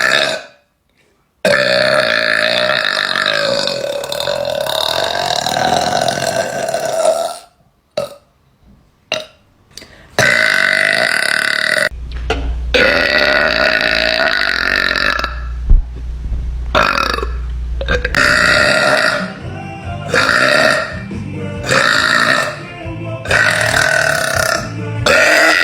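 A girl's loud, deep burps. Two very long ones each run for several seconds, with a few short ones between them, and a string of shorter burps comes about one a second near the end.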